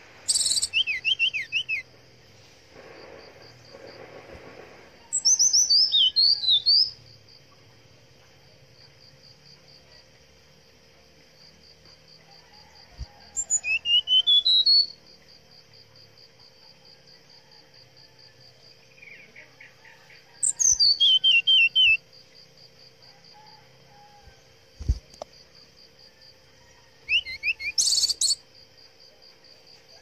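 Brown-chested jungle flycatcher singing: five loud phrases of quick, sliding whistled notes, each lasting a second or two and spaced several seconds apart. A steady, fast-pulsing insect trill runs underneath.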